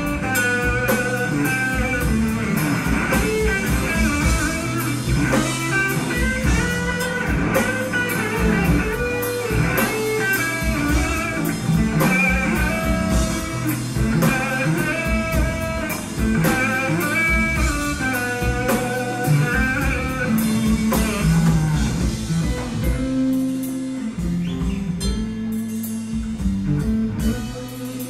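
Background music: a guitar-led blues-rock instrumental with a drum kit keeping a steady beat.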